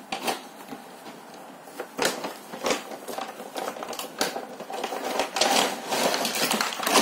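A cardboard toy box being opened and its clear plastic packaging insert pulled out: scattered knocks and scrapes, turning into a denser crackling rustle of plastic in the last two seconds.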